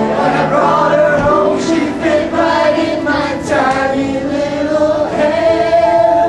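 Stage musical number: singing over musical accompaniment, with long held notes in the second half.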